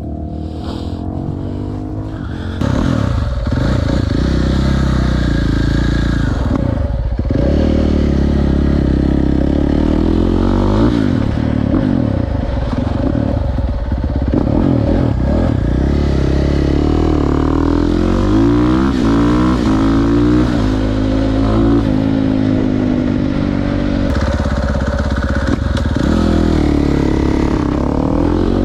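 KTM 450 SMR supermoto's single-cylinder four-stroke engine through an Akrapovic exhaust, ridden hard with the revs rising and falling again and again. It gets louder about two and a half seconds in.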